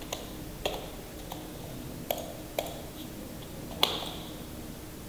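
About six sharp, separate clicks at uneven intervals over a low room hum, the loudest near the end: clicking at the computer to step through presentation slides.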